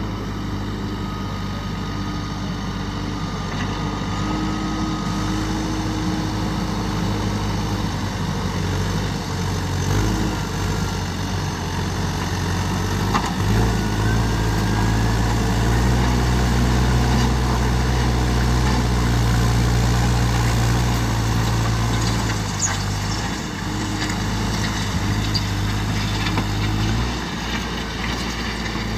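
Diesel engine of a JCB backhoe loader running steadily. About halfway through it revs up and holds the higher speed for about thirteen seconds under working load, then drops back.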